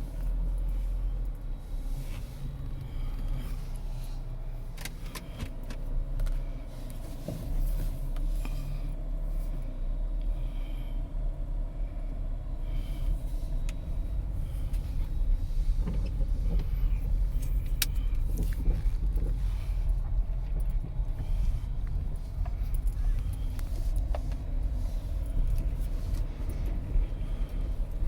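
Steady low rumble of a car's engine and road noise heard from inside the cabin while driving slowly, with scattered small clicks and rattles.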